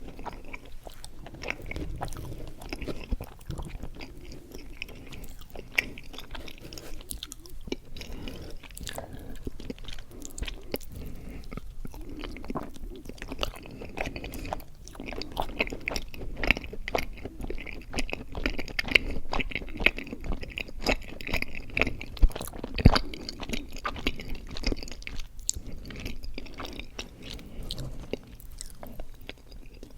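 Close-miked chewing of mochi ice cream: sticky, wet mouth sounds with many small smacks and clicks, busiest in the second half.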